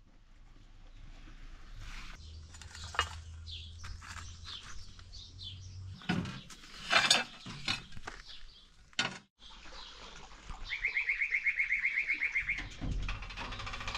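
Small birds chirping, with a fast, even trill on one pitch lasting about two seconds near the end. A few sharp knocks and scrapes come in the middle.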